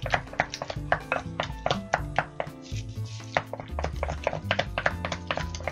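A spatula beats soft cream cheese in a glass bowl, making quick, uneven knocks and scrapes against the glass, a few each second. Background music plays under it.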